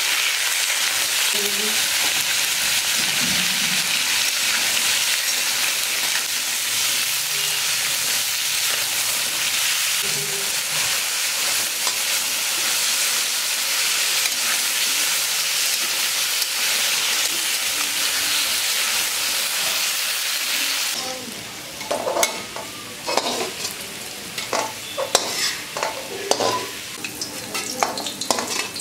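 Fish frying in hot oil in a pan, a steady sizzle that stops abruptly about 21 seconds in. After that come scattered clicks and knocks of a utensil against the pan.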